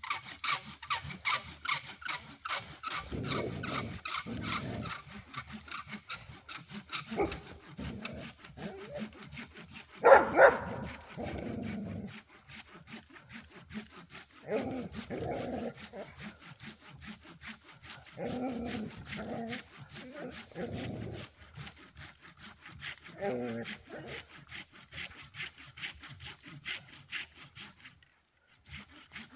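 Hand saw cutting through a dry dead log for firewood, quick steady back-and-forth strokes. A brief, louder sound stands out about ten seconds in.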